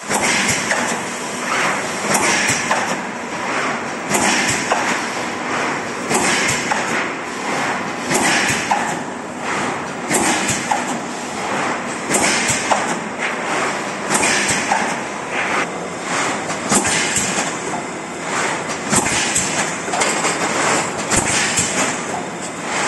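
MengXing MFC7254 cup-lid thermoforming and stacking machine running, its press cycling with a thump and a rush of noise about every two seconds, in step with its rate of 30 cycles a minute.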